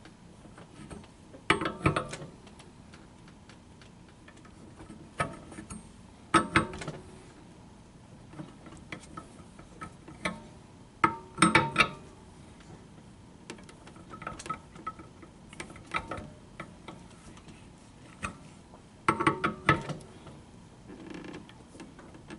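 Box wrench turning the threaded rod of a sling-chair spreader tool, forcing the chair frame rails apart: short clusters of metal clicks and clanks every couple of seconds as the wrench is worked and reset on the nut. The loudest clusters come about two, six, eleven and nineteen seconds in.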